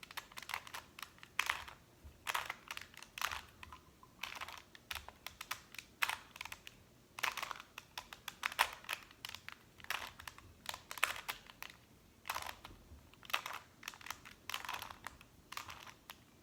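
Plastic 2x2 Rubik's cube being turned over and over by hand, its layers clicking and clacking in quick, irregular runs of snaps.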